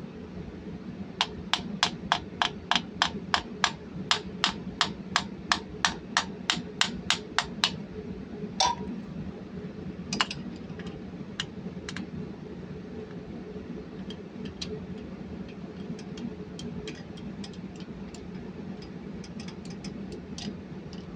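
A run of about twenty sharp metallic clicks, roughly three a second, as a hand tool works the oil supply pipe on a Cummins KTA50 engine to seat its o-ring. A louder single click follows, then scattered lighter taps, all over a steady low hum.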